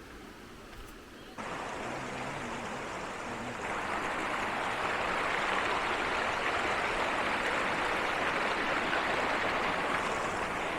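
Rushing water, a steady rush that steps up in level about a second and a half in and again near four seconds.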